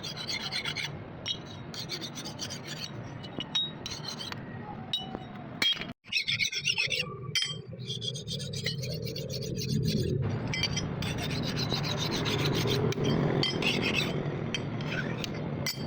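Repeated rasping, rubbing strokes of hand abrasion worked over the axe, with a brief break about six seconds in.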